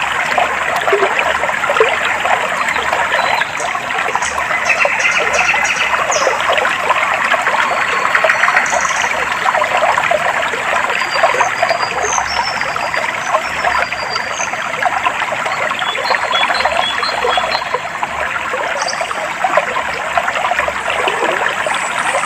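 A clear stream flowing and trickling steadily over stones, with short high bird chirps scattered faintly above the water.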